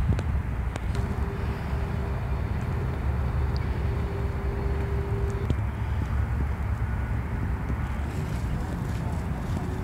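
Outdoor city ambience: a steady low rumble, like distant traffic and wind on the microphone. A faint steady hum comes in about a second in and fades out past the middle.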